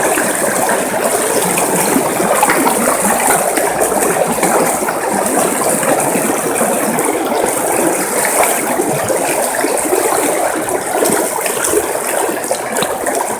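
River water flowing steadily, a loud, continuous rush with a fine bubbling, crackling texture.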